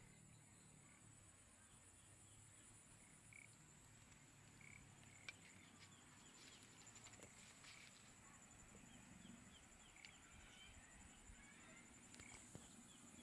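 Faint outdoor ambience: a steady high-pitched insect drone with scattered short chirps from small animals.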